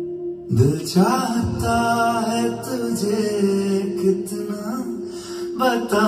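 Hindi film song playing: a voice slides up into a bending sung melody about half a second in, over a steady held drone, and slides up again near the end.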